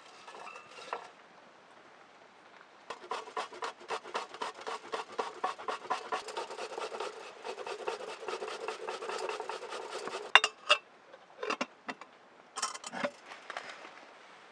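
Rapid, rhythmic scraping strokes of a tool on wood, about four or five a second for some seven seconds, then a few sharp clicks and knocks near the end.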